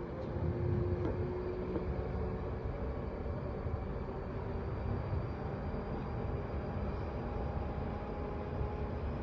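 London Underground 1972 Stock train running between stations: a steady rumble of wheels on rail with a few faint steady tones above it.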